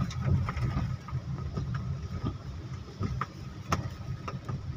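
Inside a car driving slowly through rain: a steady low engine and road rumble, with scattered light ticks of raindrops hitting the windscreen.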